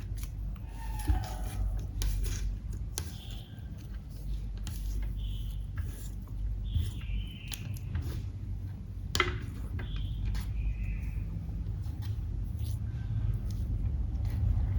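Clear slime being worked by hand, giving many sharp sticky clicks and short squelches, over a steady low hum.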